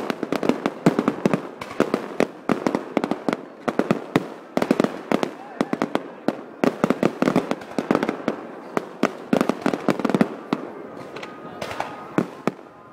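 Fireworks display: a rapid barrage of shell bursts and crackling bangs, several a second, thinning out near the end.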